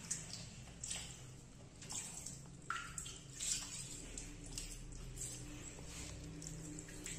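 Water splashing in short, irregular bursts as a wet kitten is washed by hand with water from a plastic basin.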